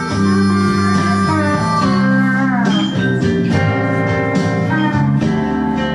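Blues music: an instrumental break between sung lines, led by guitar with some sliding notes over a steady bass.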